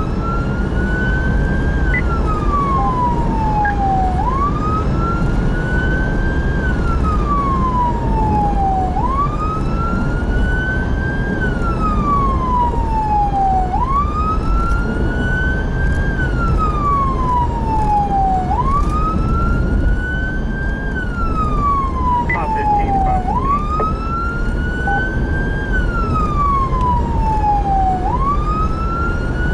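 Emergency vehicle siren on wail: each cycle rises quickly, then falls slowly, repeating about every four to five seconds. Steady engine and road noise from the moving vehicle runs underneath.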